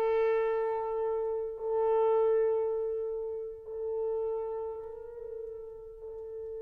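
A solo French horn holds a single note of the same pitch, restarting it about five times, with the orchestra otherwise near silent. The first notes are the loudest; the later ones are softer.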